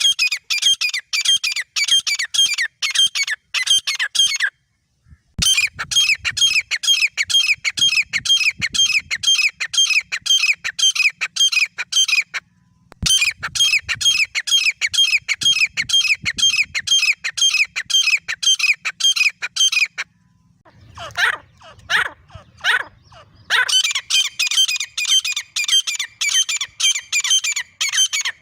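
A grey francolin pair calling: long runs of rapid, high, repeated notes, about four to five a second, broken by two short pauses. A little past two-thirds through, the runs give way to a few separate, lower calls before resuming.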